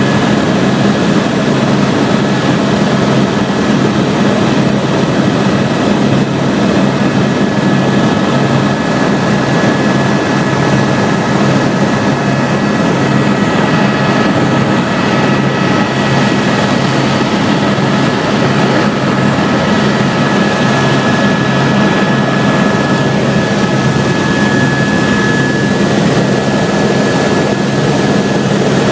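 Helicopter in flight: a steady, loud engine and rotor drone with a constant high whine over it.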